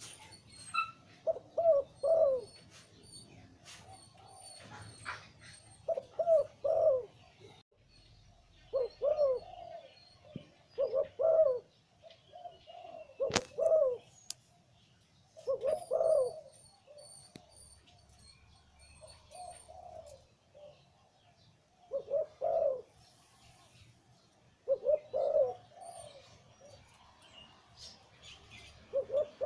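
Male zebra dove cooing in short repeated phrases, each a quick cluster of low notes, about ten phrases spaced two to three seconds apart. Faint high chirps from other small birds sound in the background.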